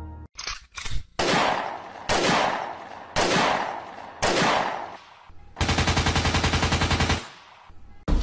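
Gunfire: four single loud shots about a second apart, each with a long echoing tail, then a rapid machine-gun burst lasting about a second and a half.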